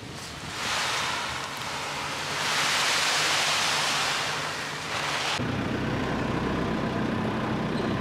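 A loud rushing hiss that swells and fades for about five seconds, then cuts off suddenly, leaving a truck engine running steadily with a low hum.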